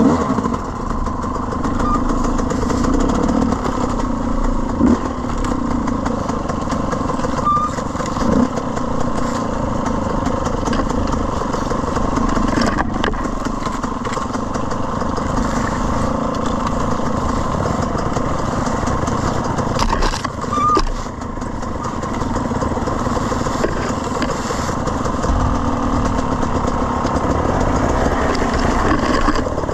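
Dirt bike engine running steadily at low to moderate throttle, heard close up from the rider's own bike on a slow trail ride, with no big revs and a few brief knocks.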